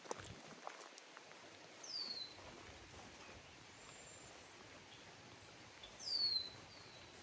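A songbird calling: short whistles that slide sharply downward, two loud ones about two and six seconds in, with fainter high calls between. Under them a steady hiss of rain in the woods, and a few soft footsteps near the start.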